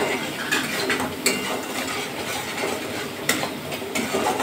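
A metal spatula stirring and scraping a thick spice paste around a metal kadai, with the spatula clicking against the pan every so often.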